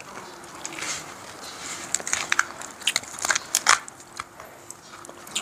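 Steamed king crab shell being cracked and pulled apart by hand: a run of irregular sharp cracks and crunches, the loudest about three and a half seconds in.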